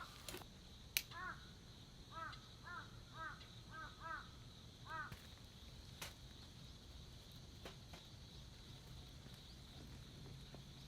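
A crow cawing about seven times in quick succession, then falling silent about halfway through, with a single sharp click just before the first caw.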